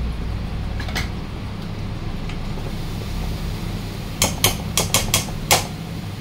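A spatula knocking against the rim of a kadhai about six times in quick succession, knocking off poha as it is added to the pan, with one single knock about a second in, over a steady low hum.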